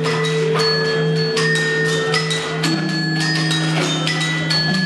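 Motion-reactive gamelan robots striking metal percussion in irregular strikes, several a second, each note ringing on, over a steady low drone.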